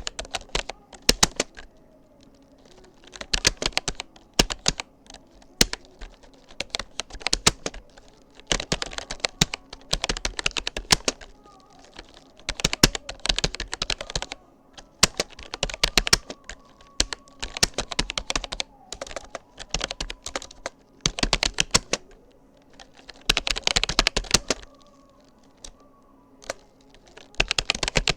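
Typing on a Rapoo computer keyboard: quick runs of key clicks, broken by short pauses every second or two.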